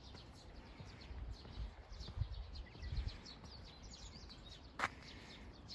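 Small birds chirping repeatedly in short, quick notes, with a few low rumbling bumps on the microphone and a single sharp click near the end.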